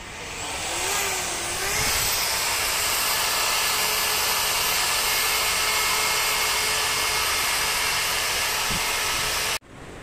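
A high-speed electric motor moving air, of the kind used in a blower or vacuum, spinning up with a whine that climbs to a very high pitch over about two seconds. It then runs as a steady loud rush of air with a thin whine over it, and cuts off suddenly near the end.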